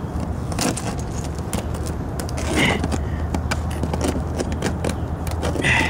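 Fingers rubbing and picking at a thick glaze of freezing-rain ice on a car's door sill, with many small crackling clicks as bits of ice break off, over a steady low hum. Two brief higher-pitched sounds stand out, about two and a half seconds in and near the end.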